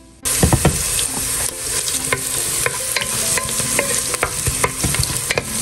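Diced onions sizzling in hot oil in a nonstick pot, stirred with a wooden spatula that scrapes and knocks against the pan. The sizzling starts suddenly just after the beginning.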